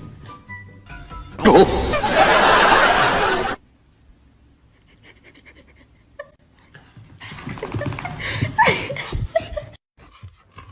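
People laughing, in two stretches: a loud one about a second and a half in, and another near the end after a quiet gap.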